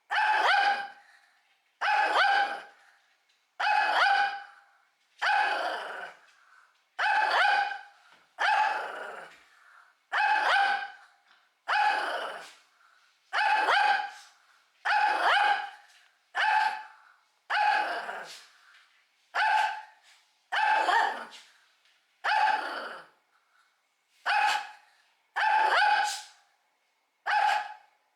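Shih Tzu barking over and over, one bark at a time about every second and a half. This is its threatening bark, the one it keeps up at feeding time.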